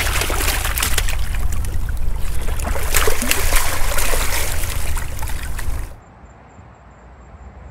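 Shallow seawater splashing and sloshing among rocks as a large shark is released and swims off, full of small sharp splashes. About six seconds in it cuts off suddenly to a quiet, steady hiss.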